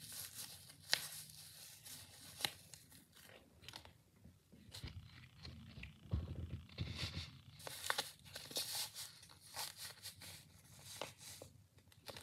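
Paper and tape being handled: faint, irregular crinkling and rustling with short sharp tearing crackles.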